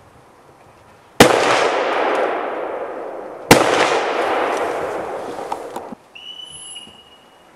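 Two hunting-rifle shots about two seconds apart, each followed by a long echo that dies away slowly. Near the end there is a brief high, steady tone.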